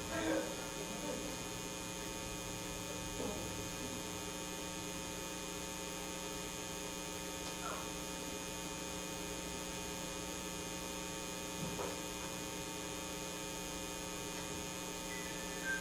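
Steady electrical mains hum, made of several constant tones, with only a few faint brief sounds about three, eight and twelve seconds in. A few faint short high notes begin near the end.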